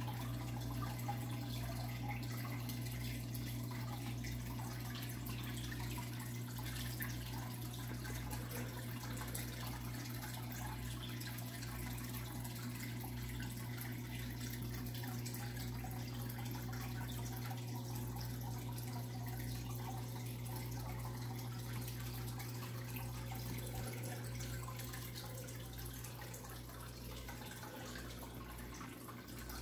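Aquarium water trickling and dripping, most likely from the tank's filter return, over a steady low hum from the tank's running equipment.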